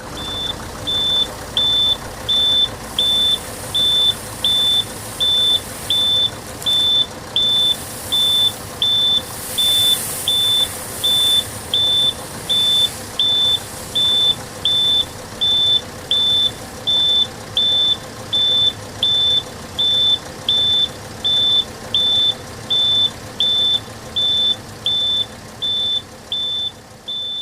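Vehicle reversing alarm beeping steadily, a high single-pitched beep about one and a half times a second, over a steady background hum.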